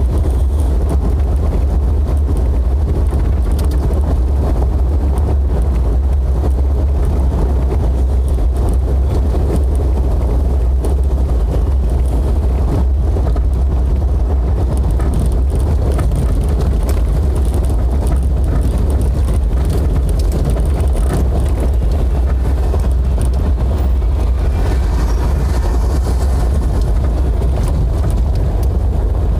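Steady low rumble of a Jeep being driven, heard from inside the cabin: engine and road noise with no change in pace.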